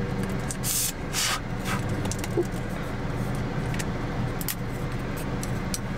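Paper wrapper crinkling and tearing as a wooden stir stick is unwrapped, with a few sharp rustles in the first two seconds and lighter ticks after. Under it runs the steady low hum of the car.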